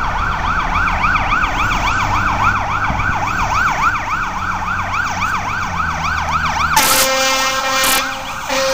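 Fire engine siren on a fast yelp, its pitch sweeping rapidly up and down several times a second. Near the end it gives way to two long, steady horn blasts.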